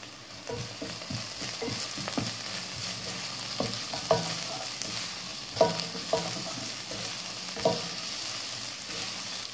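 Chopped onions, green chillies and garlic frying in hot oil in a nonstick pan, a steady sizzle, while a wooden spatula stirs and scrapes them, with a few sharp knocks of the spatula against the pan.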